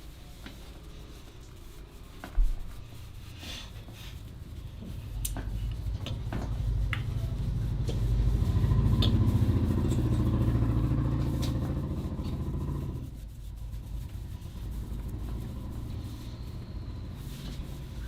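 A motor vehicle engine passing by: a low engine sound that grows louder, peaks in the middle and drops away about thirteen seconds in. A sharp thump comes about two seconds in, and there are scattered light clicks.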